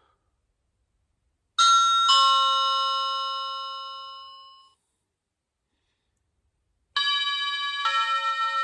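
Budget wireless doorbell chime unit playing a two-note electronic ding-dong that rings out and fades over about three seconds. After a pause it starts another, multi-note chime tune as its melodies are cycled through.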